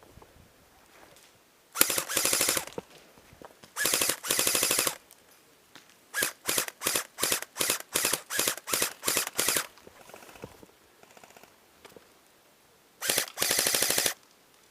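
Airsoft gun firing rapid full-auto bursts. There are two bursts of about a second each near the start, then about ten short bursts at roughly three a second, then one more burst of about a second near the end.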